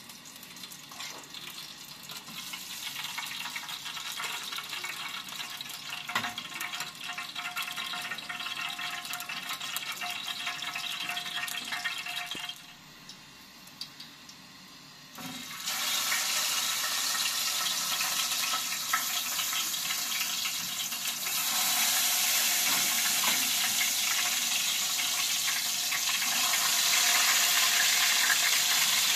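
Oil sizzling and hissing in a frying pan over a gas burner. The hiss cuts off about twelve seconds in, a short click follows as the burner is lit, then the sizzle comes back louder and swells again a few seconds later as tomato slices go into the hot oil.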